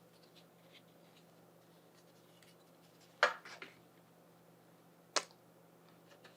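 Two sharp knocks as a panel is handled against a wooden PC case: a loud one about three seconds in, followed by a few lighter taps, and a single shorter knock about two seconds later.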